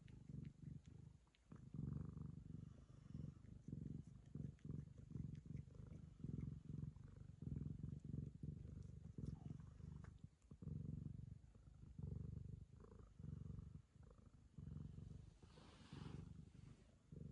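Ragamuffin cat purring close up, the purr swelling and fading with each breath about once a second.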